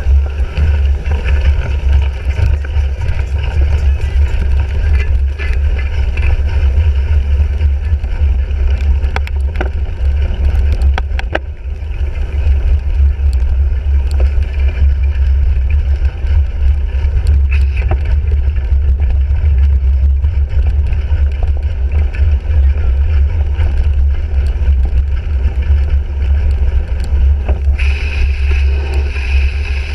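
Steady wind and riding rumble on a bicycle-mounted GoPro microphone as a cyclocross bike is ridden over rough ground, with scattered clicks and rattles from the bike. A brighter hiss comes in about two seconds before the end.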